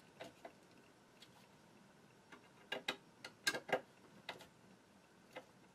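Hand screwdriver tightening small screws into the quick-release bracket of a metal TV wall-mount arm: irregular sharp clicks and taps, with the loudest cluster about three and a half seconds in.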